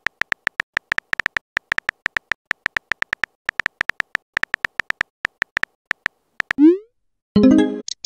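Phone keyboard tap clicks, a fast, uneven patter of short ticks as a text message is typed. Near the end comes a quick rising swoop as the message is sent, then a brief pitched alert tone.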